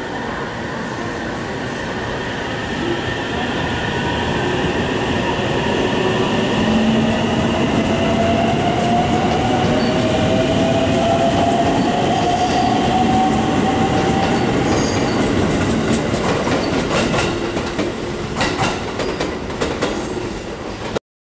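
JR Central 313 series electric train pulling out and accelerating: its traction motors give a whine that rises steadily in pitch and grows louder, and near the end the wheels click over rail joints.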